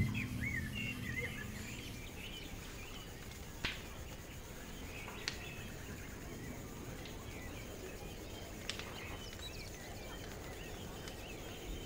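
Field-recorded outdoor ambience: a steady low rumble of background noise with faint, scattered bird chirps, and three sharp clicks spread through it.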